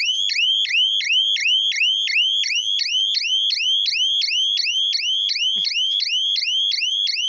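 Electronic warning siren from the hooter on a solar electric-fence energiser, sounding a high rising chirp about three times a second without a break.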